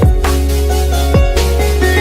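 Electronic background music with a steady beat: drum hits about every half second over a sustained bass line.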